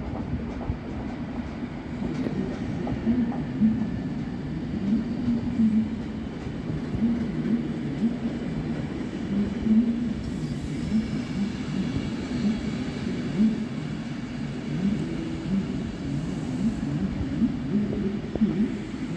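Belgian SNCB AM80 electric multiple unit running along the station platform, a steady low rolling noise of the train passing.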